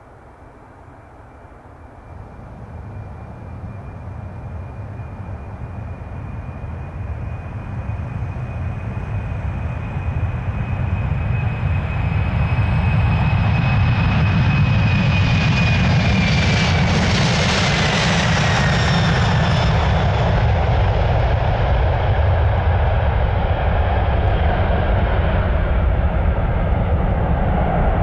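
Boeing 747-400F freighter's four jet engines at takeoff thrust during the takeoff roll. The engine noise grows steadily louder over the first dozen seconds. A high whine falls in pitch as the aircraft passes about two-thirds of the way in, leaving a loud, heavy low rumble.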